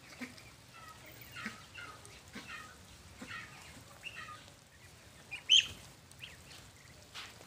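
A flock of domestic ducks calling: short, fairly faint calls about once a second, with one sharper, louder call about five and a half seconds in.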